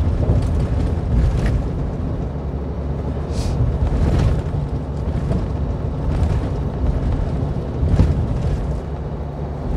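Truck road noise heard from inside the cab: a steady low rumble of tyres and engine on a badly broken road surface. A few sharp knocks and rattles come as it jolts over holes, the sharpest about eight seconds in.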